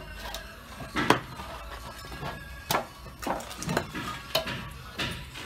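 Several sharp clinks and knocks at irregular intervals as a metal straightedge is set and tapped against a course of freshly laid pumice blocks to line them up.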